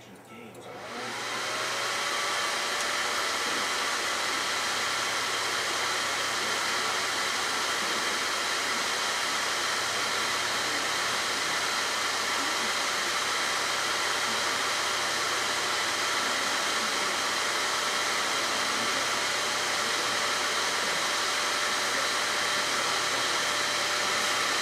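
A cooling fan switches on about a second in and spins up to a steady rush of air blowing over the laptop board. It is cooling the freshly reflowed GPU after the solder has dropped below its 187°C melting point.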